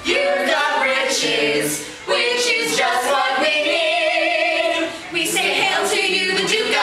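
A group of men's and women's voices singing together in a musical theatre number, with long held notes that waver; the singing breaks off briefly about two seconds in and again near five seconds.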